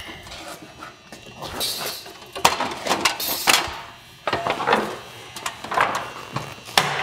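A ladder being moved and set down: irregular knocks, clatter and scraping, with footsteps.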